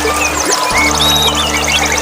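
Background music of steady, held low notes, which drop out briefly about half a second in. Over it, many small songbirds chirp and trill in quick, rising and falling calls, against a steady hiss of running water.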